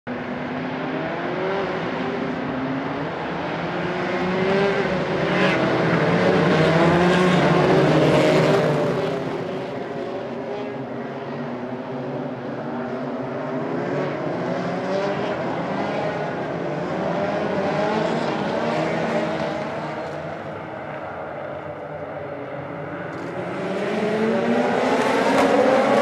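A pack of endurance prototype race cars running together, many engines at once, their pitches rising and falling as the cars pass. The sound swells, eases, then grows louder near the end as several engines rise in pitch together, the field accelerating toward the start.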